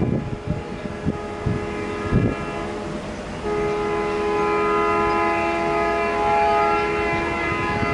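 Train horn sounding one long, steady chord, faint at first and much louder from about three and a half seconds in, over the rumble and wind of a train running at speed.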